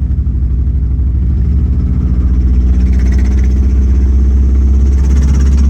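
2002 Subaru Legacy's engine running under load, its pitch and level rising a little about a second in as the car picks up speed. This is a check for an engine knock, which now sounds milder than it did.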